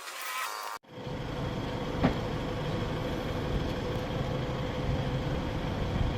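Honda Civic FD engine running steadily with a busy mechanical clatter, and a single sharp tick about two seconds in. This comes after a brief different sound that cuts off abruptly under a second in.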